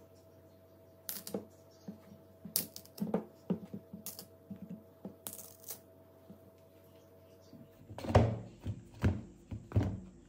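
Bananas being snapped off the bunch by hand, with a run of sharp cracks and clicks from the stems and peels. Near the end come a few louder, dull knocks as the bananas are set down in a wooden bowl.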